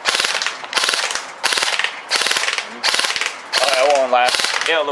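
M4-style airsoft rifle firing in a string of short full-auto bursts, each a fast rattle of shots, several bursts in quick succession.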